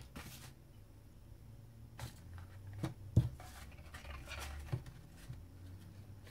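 Cardstock and paper rustling softly, with a few light taps and clicks as a folded card Christmas cracker is picked up and handled and twine is tied around it; the sharpest tap comes about three seconds in.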